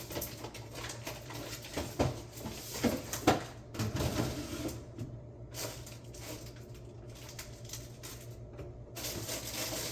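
Leftover food containers and dishes being handled while the fridge is cleared out: scattered knocks and light clatter, the clearest a few sharp ones about two to three seconds in, over a low steady hum.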